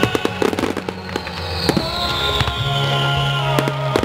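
Display fireworks bursting and crackling, many reports in quick succession with a cluster of bangs just after the start and another near the end, over music played with the display.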